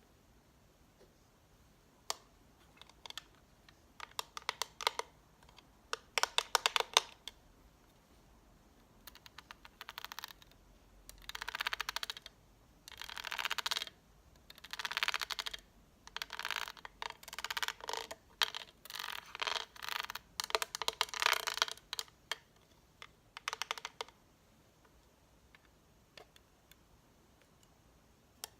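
ASMR tapping and scratching on makeup products and packaging, with fast runs of clicky taps and a middle stretch of denser, longer scratchy spells.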